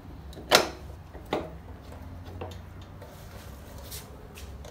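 Metal parts of a motorcycle's rear wheel assembly knocking together as they are handled: a sharp clink about half a second in, another just under a second later, then a few faint taps, over a low steady hum.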